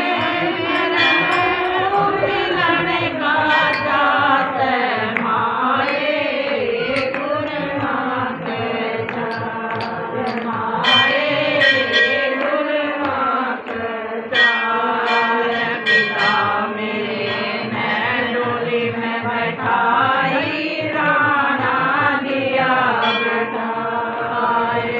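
Group of women singing a Hindu devotional bhajan (guru bhajan) together in unison, with hand clapping keeping time.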